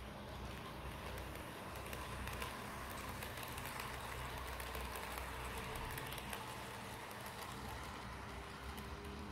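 Piko model electric locomotive and passenger coaches rolling past on model track, the wheels running with a steady rattle and many small irregular clicks over the rail joints.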